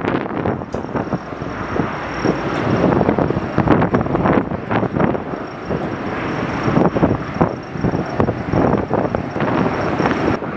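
Strong gusting wind buffeting the microphone in a snowstorm, rising and falling in loudness, with a faint steady high-pitched whine beneath it.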